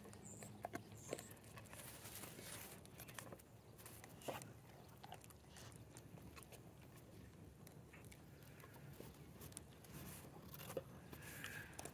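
Near silence: faint outdoor room tone with a low hum and a few scattered soft clicks and rustles.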